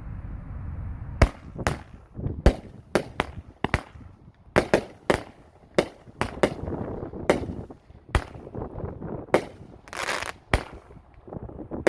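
T-Sky Exploder 18-shot 200-gram firework cake firing: a string of sharp bangs from lift charges and shell breaks starting about a second in, irregularly spaced, some in quick pairs. About ten seconds in comes a short hissing crackle of strobe stars.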